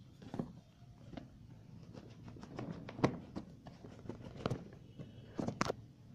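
Irregular taps, knocks and light clicks from hands handling a phone's cardboard retail box. The loudest knocks come about three seconds in and again near the end.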